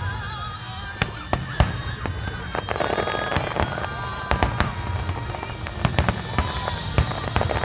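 Aerial fireworks going off: a rapid, irregular series of sharp bangs and cracks.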